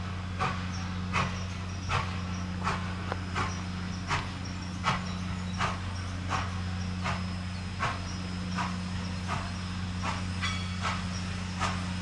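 Nickel Plate Road 765, a 2-8-4 Berkshire steam locomotive, approaching from a distance with its exhaust chuffing in a steady, slow beat, about three chuffs every two seconds, over a steady low hum.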